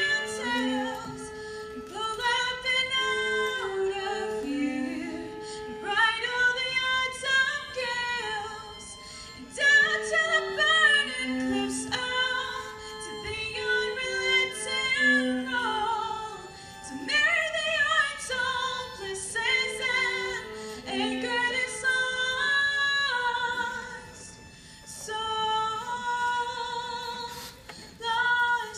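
A woman singing a slow song into a microphone, accompanied by violin and viola. The sung phrases are broken by short pauses, and the strings hold long notes beneath her.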